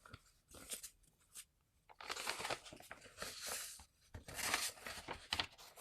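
A sheet of paper, the written prescription, being unfolded and handled. Crisp crinkling rustles come in bursts from about two seconds in.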